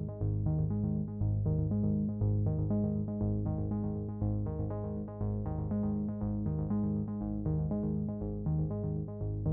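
Background music: a soft synthesizer and keyboard tune with a steady, even rhythm of repeated notes.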